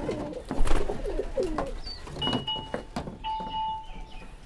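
Giribaz pigeons cooing in wavering low calls for about the first two seconds, with a few sharp clicks among them. Two short, steady, high tones sound about halfway through and again soon after.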